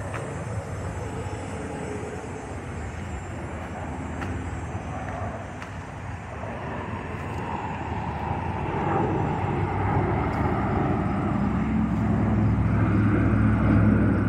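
Airplane engines rumbling as it flies overhead, the rumble growing louder in the second half.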